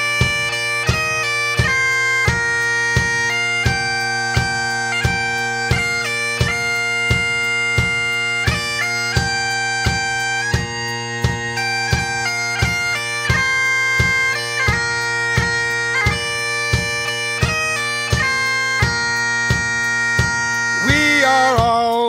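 Background music: bagpipes playing a melody over a steady drone, with a regular drum beat.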